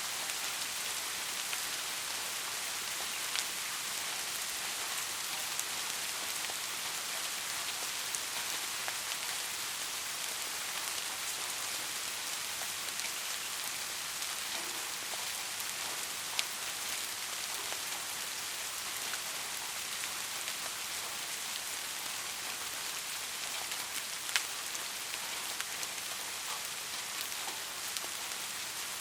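Steady rain falling, an even hiss with occasional louder individual drops ticking.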